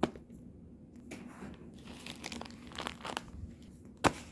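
Homemade squishies being handled and swapped, giving irregular crinkling and crackling, with a sharp tap near the end.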